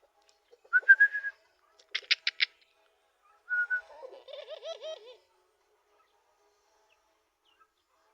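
Tame puter (Barbary) dove giving a low, rolling, wavering coo about four seconds in. It is preceded by two short high whistle-like tones and a quick run of four sharp clicks.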